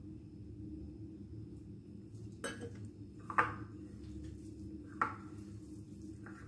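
Three short clinks of dishware, about two and a half, three and a half and five seconds in, the middle one loudest, as hands knead moistened rice and rice flour into a dough in a ceramic bowl. A steady low hum runs underneath.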